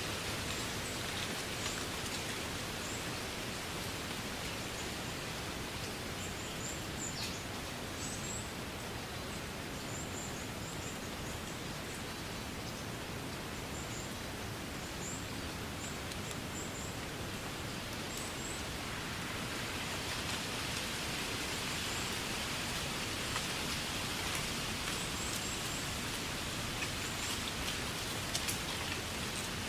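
Wind blowing through grass: a steady rustling hiss that swells about twenty seconds in, with faint, short, high chirps scattered through it.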